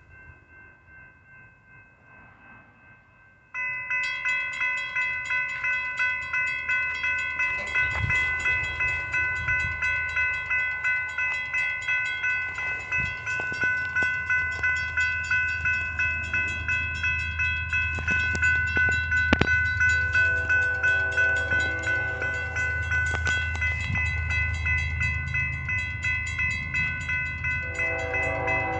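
Electronic railroad crossing bell starts ringing about three seconds in, dinging about twice a second, with fainter ringing before it. A train horn sounds in the distance around two-thirds of the way through and again near the end, over a low rumble that grows as the train approaches.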